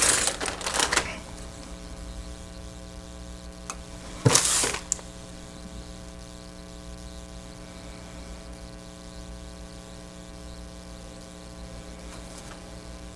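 A clear plastic parts bag crinkling for about the first second as a plastic kit sprue is pulled out of it, then a steady electrical mains hum, broken once about four and a half seconds in by a brief rustle of plastic.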